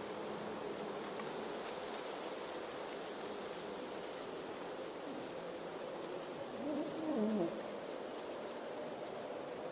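Blizzard wind blowing steadily with a low howl. About seven seconds in, a brief pitched sound slides downward in pitch, the loudest moment.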